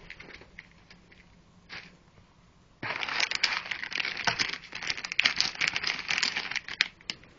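Plastic packaging bag crinkling and cardboard rustling as a hand rummages in a cardboard box of accessories: mostly quiet at first, then continuous crackling and crinkling from about three seconds in until near the end.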